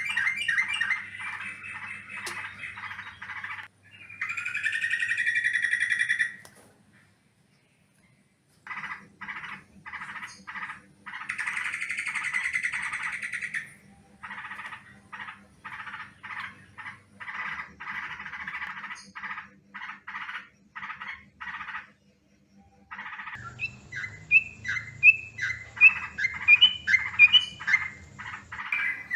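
Yellow-vented bulbul (trucukan) calls: runs of rapid, scratchy chattering notes, broken twice by short pauses, with brighter rising chirps near the end. This is the excited call used as a lure track to draw in other bulbuls.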